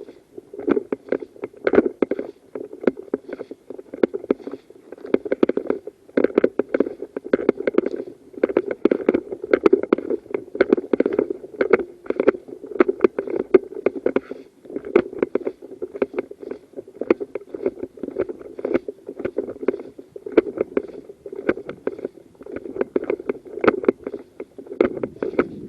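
Close rustling and irregular knocking of clothing and kit against a body-worn camera's microphone as the wearer moves about, over a steady low rumble.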